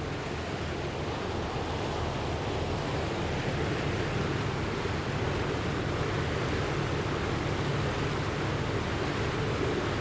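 Steady rush of surging water and surf, a flood sound effect, swelling slightly over the first few seconds and then holding even.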